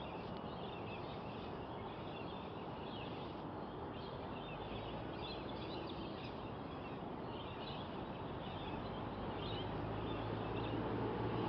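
Small birds chirping and twittering in short, scattered calls over a steady outdoor hiss; a low hum grows louder near the end.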